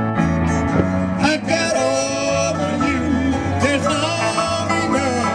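Live country band playing: electric and acoustic guitars strummed and picked over steady changing bass notes, with a wavering melody line on top.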